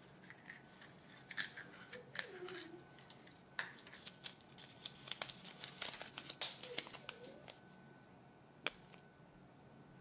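A Kinder Surprise plastic toy capsule being opened and its folded paper leaflet pulled out and unfolded: irregular crisp clicks of plastic and crinkling of paper, thickest in the middle, with one last click near the end.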